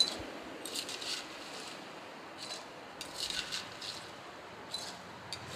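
A spoon scraping crushed ice from a glass bowl into a steel pot: several short, faint scrapes spread through the moment.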